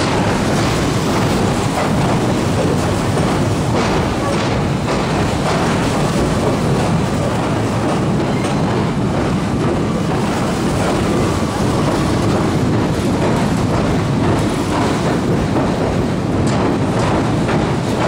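A train crossing the steel railway bridge right beside the walkway: a loud, steady rumble with the clatter of wheels over rail joints.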